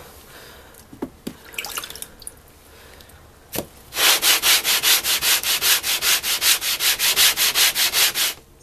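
Japanese water stone rubbed back and forth on wet-or-dry sandpaper to flatten it. A few light knocks come first, then about halfway through a fast, even scraping rhythm of about four to five strokes a second begins.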